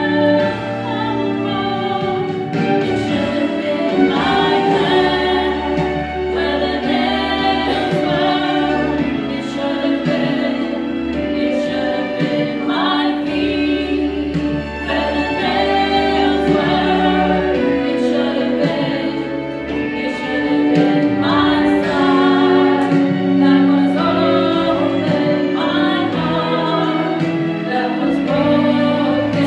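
Small church choir singing, the voices holding long notes that move from chord to chord.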